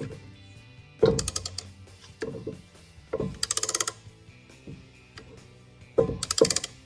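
A ratchet wrench clicking in several short bursts of rapid clicks, with its direction switch just flipped, as it works the caliper piston press tool back.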